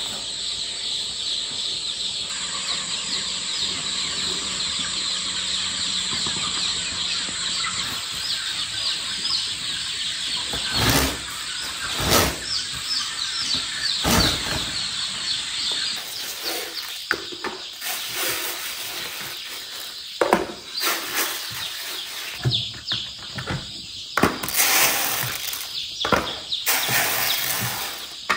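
Many newly hatched chicks peeping continuously in a dense, high-pitched chorus, with scattered knocks and clatter joining in over the second half.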